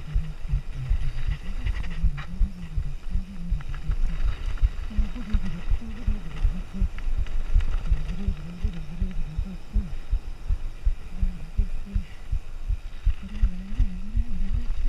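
Nukeproof Mega mountain bike descending a rough downhill trail: a quick, irregular run of knocks and rattles from the wheels and frame over roots and rocks, under a low wavering hum.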